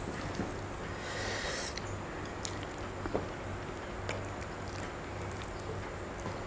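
Lemon wedges squeezed by hand over a plate of rice and sambal: faint wet squishes and small ticks, with a short hiss about a second in.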